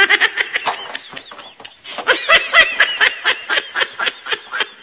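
A person laughing in quick, high-pitched bursts of giggling, dying down briefly about a second in, then picking up again.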